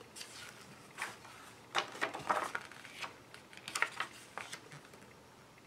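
Paper rustling as the pages of a printed instruction booklet are handled and turned: several short, quiet rustles and crinkles.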